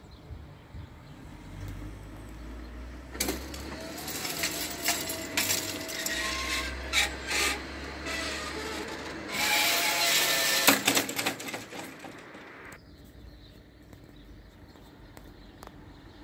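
Level-crossing barrier booms rising: the drive runs with a steady whine while the hanging grille under the boom rattles and clinks. It starts about three seconds in and cuts off sharply about ten seconds later, when the booms reach the top.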